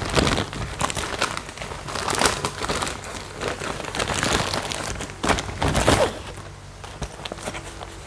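Gift wrapping and packaging being crumpled and torn open by hand, an irregular run of crinkling and ripping that is busiest for the first six seconds and then eases off.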